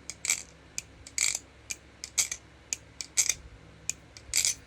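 Balisong (butterfly knife) being flipped in an ice pick sound test, its handles clacking shut around the blade: a sharp metallic clack about once a second with lighter clicks between. The pivots have just been oiled and the oil is still being worked in.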